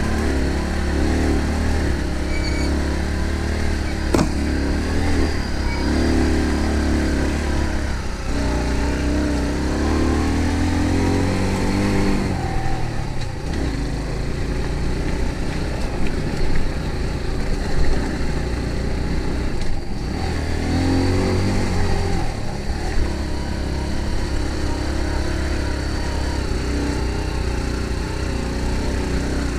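An engine running steadily with a low rumble, its pitch rising and falling now and then.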